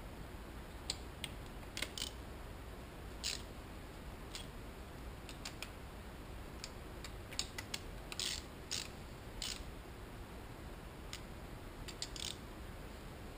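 Hand socket ratchet clicking in short, irregular strokes, some in quick runs, as bolts on a motorcycle cylinder head are turned.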